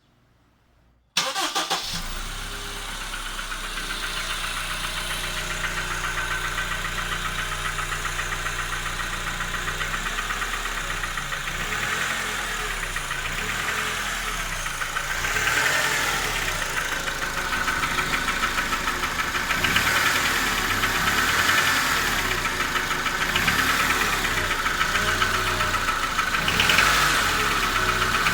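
Honda K20A 2.0-litre inline-four starting about a second in and then running, with a rapid knocking. The owner cannot tell whether the knock comes from a piston or a hydraulic lifter.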